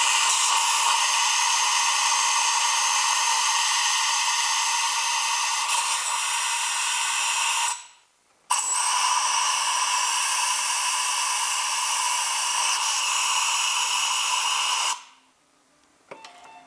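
Aerosol parts-cleaner spray hissing through a straw nozzle onto a motorcycle cylinder head, flushing cleaner foam out of the combustion chambers and valves to clear carbon. It comes in two long, steady bursts with a brief stop about eight seconds in.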